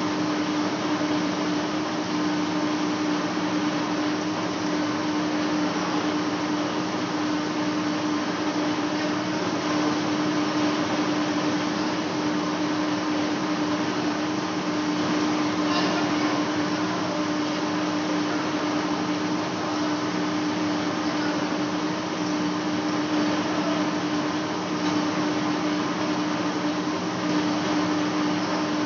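Large lathe running steadily while facing a big metal flange: a constant hum over an even machine noise, with one faint tick about halfway through.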